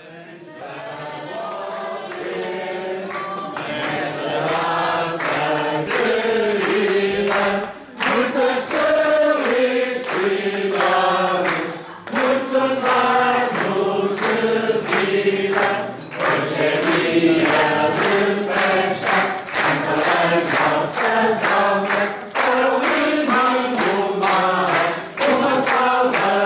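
A group of voices singing a birthday song together, unaccompanied, fading in at the start and going on in phrases with short breaths between them.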